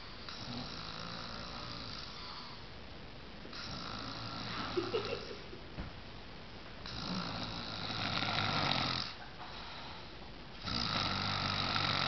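A man snoring in his sleep: four long snores, about one every three and a half seconds, the last two louder.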